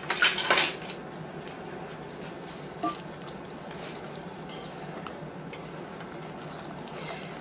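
Wire whisk stirring instant mashed potatoes with butter in a mixing bowl: a quick clatter of the whisk against the bowl in the first second, then soft, steady stirring with a few light clicks.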